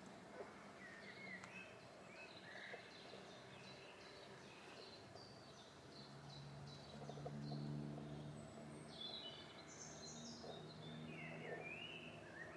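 Faint songbird calls in the garden: a run of short high chirps and little warbled phrases throughout, with a low distant hum joining from about six seconds in.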